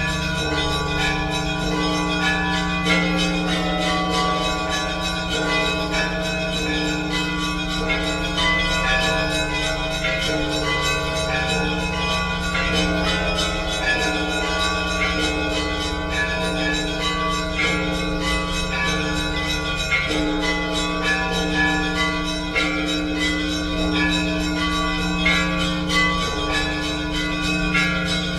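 Orthodox church bells ringing together: many bells of different pitches struck over and over in a continuous peal, with deep bell tones humming underneath.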